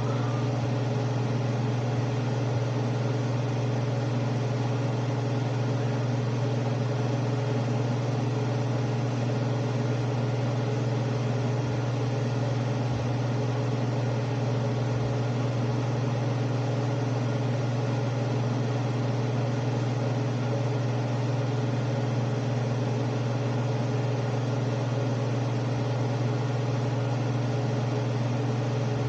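Steady motor hum and airy hiss of a kitchen range-hood fan running over the stove, unchanging throughout.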